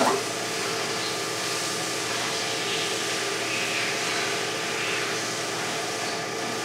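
Storm Vulcan surfacing mill switching on with a sudden start, then its motor and spinning cutter head running with a steady hum and whir.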